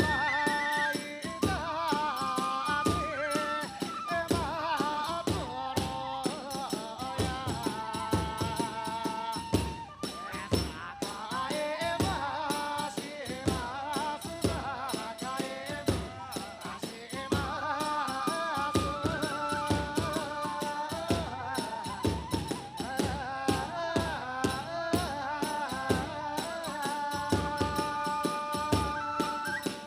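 Kagura hayashi music: fast, steady drum strokes and jangling hand cymbals under a bamboo flute melody.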